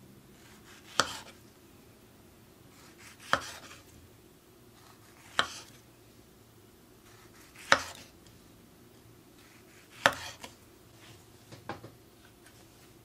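Kitchen knife slicing through whole figs, skin on, and knocking on a wooden cutting board with each cut: five sharp knocks about two seconds apart, then a few lighter knocks near the end.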